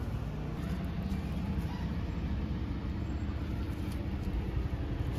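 Steady low outdoor rumble with no clear events standing out.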